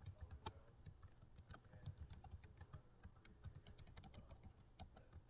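Faint typing on a computer keyboard: a quick, uneven run of keystrokes.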